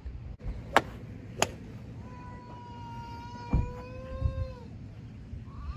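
Two sharp cracks of golf clubs striking balls, about two-thirds of a second apart. Then a long, steady, high-pitched vocal note held for nearly three seconds, with a dull thump partway through.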